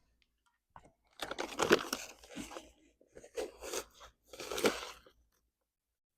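Four short bouts of close crunching and rustling, with gaps between them.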